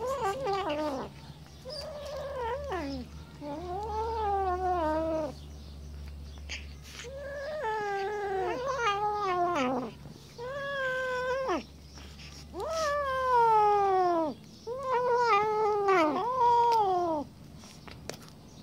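Siamese kittens yowling over a piece of fish as they eat: a string of long, wavering, drawn-out yowls one after another, the food-guarding warning of cats that won't share their meal.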